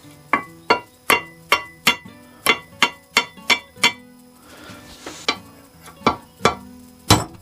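A hammer striking metal with a ringing tone: about ten quick, evenly spaced blows, a short pause, then four more.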